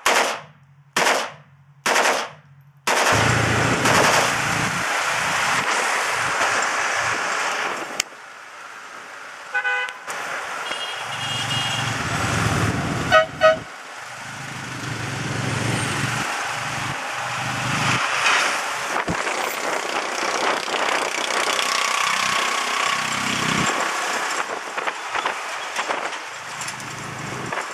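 Three short bursts of full-automatic fire from an AK-47/Type 56 rifle, chambered in 7.62×39 mm. Then the steady noise of riding in an open tuk-tuk through city traffic, with vehicle horns tooting about a third of the way in and again near the middle.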